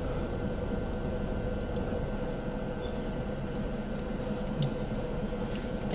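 Steady hum of an idling vehicle engine, with a constant drone and a small bump about three-quarters of the way in.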